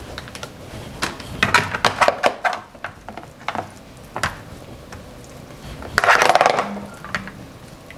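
Metal serving spoon clicking and scraping against a plastic tray as raw beef cubes are scooped up and dropped into plastic freezer bags, in a run of short clatters, with a louder burst of handling noise about six seconds in.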